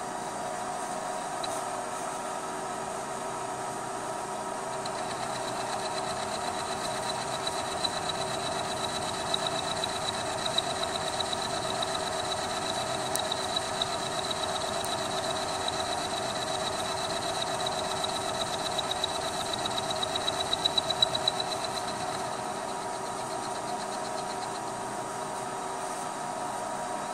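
Vertical milling machine running, its worn end mill cutting a hex flat on a steel hydraulic fitting. A high whine with rapid ticking from the cut sets in about five seconds in and stops a few seconds before the end, over the machine's steady hum.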